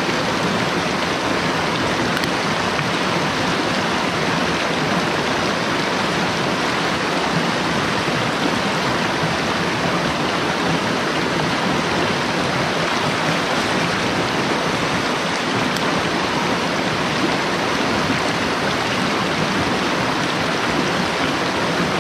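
Rushing water of a mountain stream, running loud and steady.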